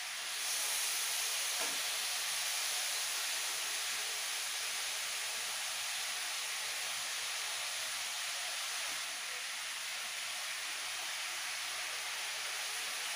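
Food frying in hot oil in a kadai: a steady sizzle that steps up slightly about half a second in.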